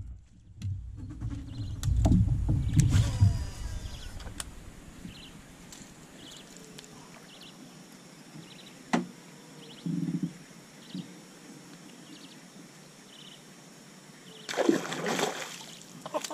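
Water moving gently around a small boat, with a low rumble in the first few seconds and faint high chirps repeating through the quiet middle. Near the end there is a loud splash on the water surface beside the boat.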